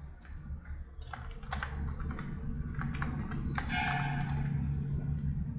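Computer keyboard keys being typed in a quick run of keystrokes as a password is entered, over a low steady hum.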